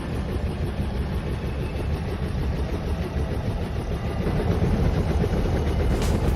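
Low, fluttering engine-like rumble that grows slowly louder.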